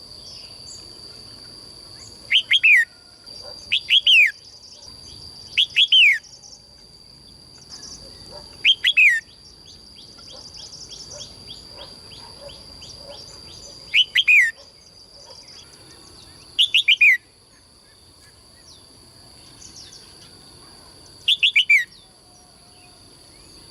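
A songbird giving short, loud, downward-sliding whistled calls, seven in all, spaced a few seconds apart. A softer, fast trill runs between them about ten seconds in, over a steady high-pitched tone.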